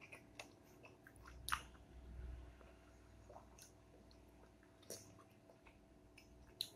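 Quiet, wet chewing of soft ripe papaya, with a few faint sharp clicks and scrapes from a spoon working the fruit's flesh; the loudest click comes about one and a half seconds in.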